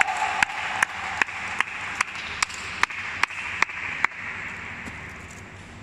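Spectators applauding, with sharp claps in an even beat of about two and a half a second that stop about four seconds in, the applause dying away after.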